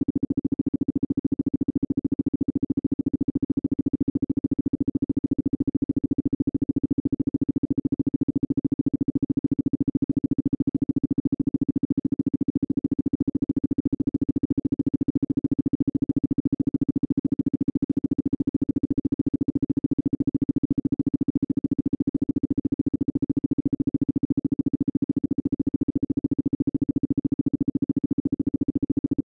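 Isochronic tone: one steady tone switched on and off many times a second, making an even, rapid pulsing. A fainter, lower tone sits underneath.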